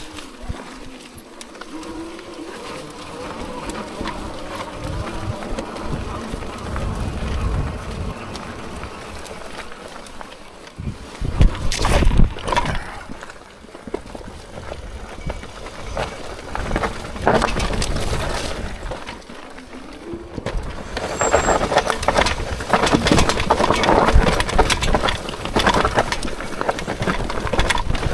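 Hitway BK10S folding electric fat-tyre bike ridden off-road: a steady noisy rumble of tyres and rattle over rough ground, with a faint steady whine at first, sharp knocks about twelve seconds in, and a louder, rougher stretch in the last third.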